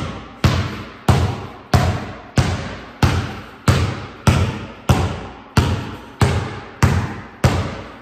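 Basketball dribbled on a concrete garage floor: a steady run of bounces, about one and a half a second, each one briefly ringing in the room.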